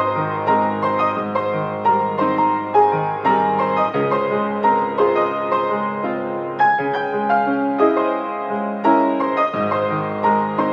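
Background music: a gentle piano piece with many struck notes over a held low bass line, which drops out about four seconds in and returns near the end.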